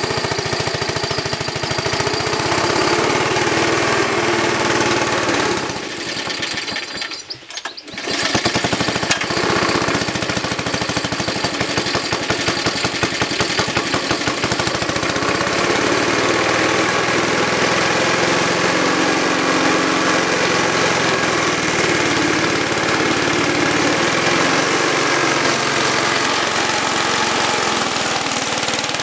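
ATCO cylinder lawn mower's small Suffolk petrol engine running with a fast, rapid firing beat. About six seconds in it falters and nearly dies, then picks up again. It is running rough and bogging down, which the owner puts down to a faulty carburettor.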